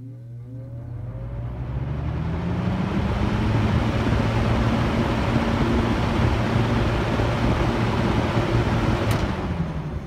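Mid-1970s EXL seven-bladed box fan started from off straight to high: the motor hums and the whoosh of the blades rises as it spins up over about three seconds, then runs steadily at high speed. A switch click about nine seconds in turns it off and the sound begins to die away as the blades coast down.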